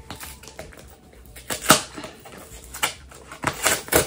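Packing tape being ripped off a cardboard shipping box in several short, sharp tears, the last few coming close together near the end.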